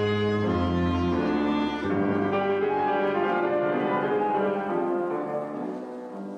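Orchestral scene-change music cue: sustained string chords over a low bass line that drops out about two seconds in, the music then fading away near the end.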